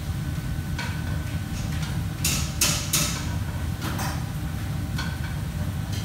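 Kitchen clatter of metal pans, bowls and utensils: scattered clicks and knocks, with three louder clangs close together about two to three seconds in, over a steady low hum of machinery.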